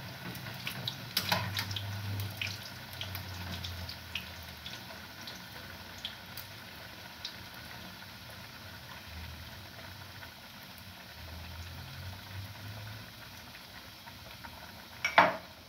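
Sausages sizzling in a frying pan over a gas burner, a steady hiss with a few light clicks of the spatula.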